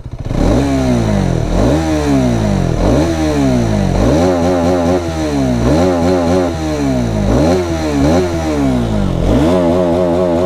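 Hero Xtreme 250R's single-cylinder engine being free-revved in neutral, with about eight or nine quick throttle blips. Each one climbs sharply in pitch and falls back toward idle, reaching close to 11,000 rpm.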